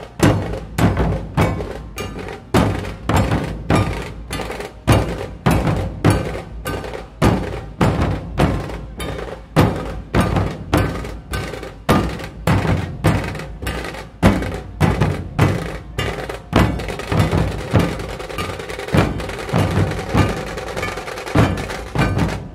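A troupe of large double-headed dhol drums beaten together with sticks in a steady, loud rhythm of about two to three strokes a second. Toward the end the strokes become less sharp and run together into a denser sound.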